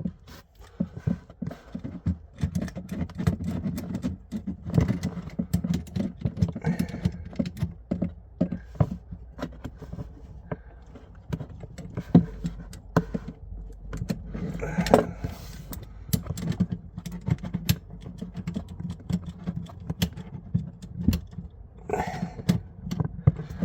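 Adjustable spanner working a compression nut onto copper pipe in the cramped space under a sink: many irregular metal clicks, taps and scrapes as the spanner is fitted and turned.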